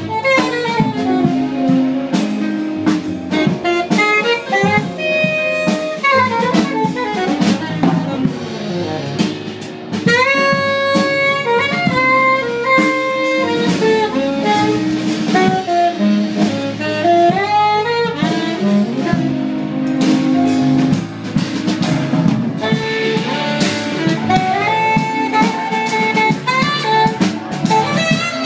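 Live jazz quartet playing: a saxophone plays quick, winding melodic runs over a drum kit.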